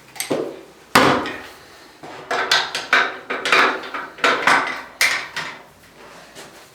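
Chiropractic treatment table being set up for traction: sharp wooden and metal knocks and clatters. One loud knock comes about a second in, then a quick, uneven run of about a dozen more between about two and five and a half seconds in.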